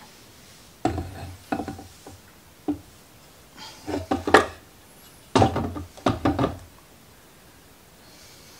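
Clunks and scraping of the mechatronic unit of an Audi DL501 (0B5) seven-speed dual-clutch transmission being worked free and slid out of the transmission housing. The knocks come in three short clusters: about a second in, around four seconds, and around five and a half to six and a half seconds.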